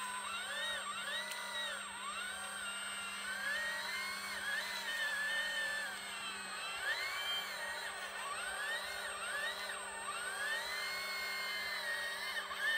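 Electric hydraulic pump of a radio-controlled model excavator whining, its pitch rising and falling over and over as the boom and bucket move under changing load.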